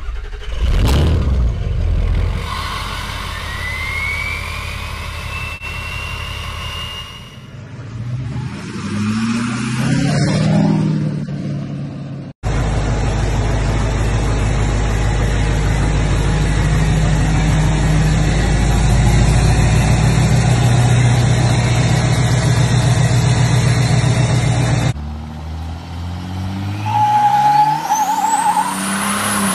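Diesel pickup truck engines in several short clips: revving up and down, then a long stretch of loud steady running, then hard revving near the end with a high whistle rising steeply in pitch.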